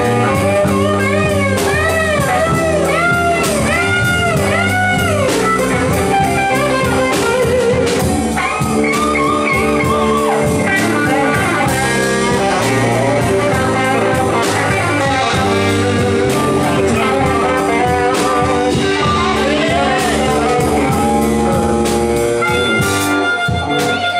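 Live blues band playing: an electric guitar solo full of bent notes over drums and bass.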